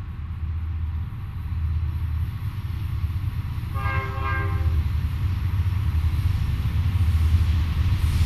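Approaching freight train led by BNSF GE diesel locomotives, its engines rumbling low and growing louder as it nears. Just under four seconds in, the locomotive horn sounds one short blast of about a second.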